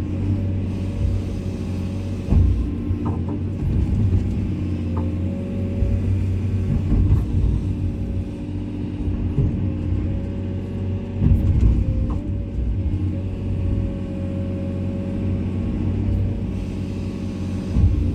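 Komatsu excavator's diesel engine running steadily under load, with a steady higher whine over the low engine note and a few short knocks and clunks as it works.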